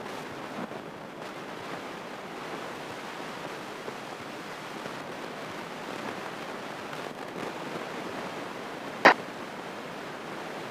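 Steady rushing cabin noise of a light single-engine airplane taxiing, its propeller turning. One sharp click about nine seconds in.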